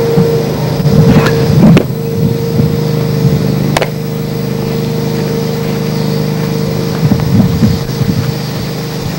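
Steady low hum with gusts of wind buffeting the microphone, loudest about a second in and again near the end, and two sharp pops about two and four seconds in.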